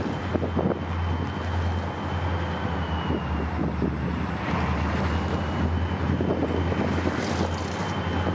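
A pair of EMD SD40-2 diesel-electric locomotives, each with a turbocharged 16-cylinder two-stroke engine, running as they pull a freight train slowly past: a steady low engine rumble with a thin high whine above it.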